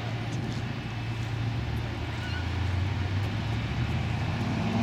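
Distant towboat's diesel engines giving a steady low drone, working hard as it pushes a heavy barge tow upstream. Near the end another engine note starts to rise in pitch.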